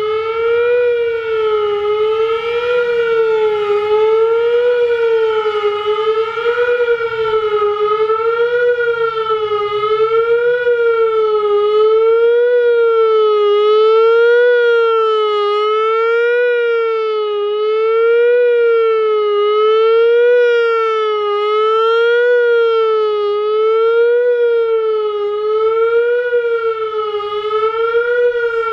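Whelen WPS-3000 electronic outdoor warning siren sounding the Attack signal, a fast wail: one loud tone sweeping up and down in pitch over and over, roughly every second and a half to two seconds.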